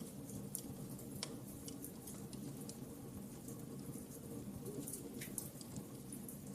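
Wood fire crackling in a fireplace: irregular small pops and snaps over a steady low background.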